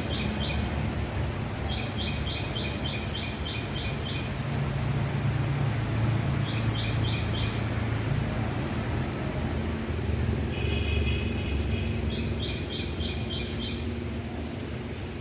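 Wind rumbling low and steady over the microphone, with a small bird calling in several short runs of quick, evenly spaced chirps, about three a second.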